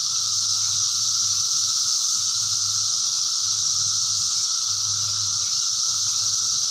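Steady high-pitched drone of insects, unbroken throughout, with a faint low hum underneath.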